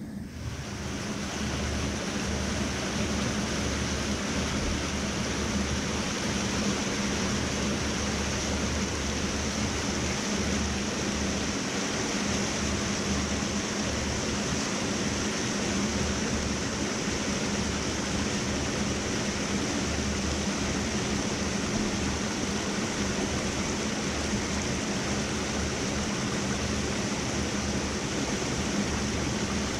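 A shallow mountain stream rushing over rocks and small cascades: a steady, unbroken hiss of running water.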